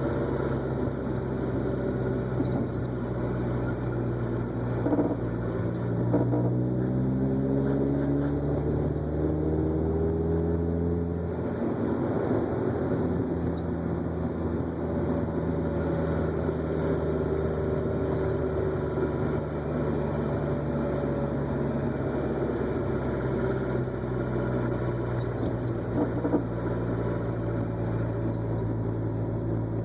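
Mazda Miata four-cylinder engine running steadily. Its pitch climbs gradually for about five seconds, drops back suddenly, then holds steady again.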